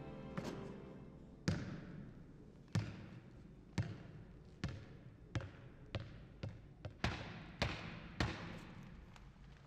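A basketball being dribbled on a hard gym floor: about a dozen single bounces, each echoing through the large hall. They come slowly at first and faster toward the end.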